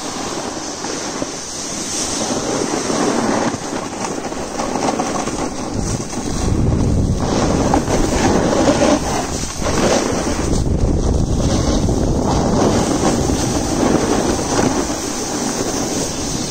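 Wind rushing over the microphone and the scrape of board or ski edges on packed snow while riding down a ski slope, with a heavier low rumble from about six seconds in.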